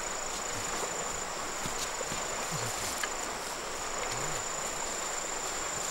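A steady high-pitched insect drone, crickets or cicada-like, over the even rush of a river, with a few faint clicks.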